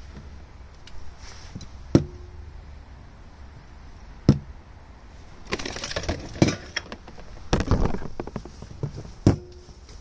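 Handling of the oil jug and the new oil filter while the filter is primed with oil: three sharp knocks, two with a brief ringing note, and two short stretches of rattling clatter a little past the middle.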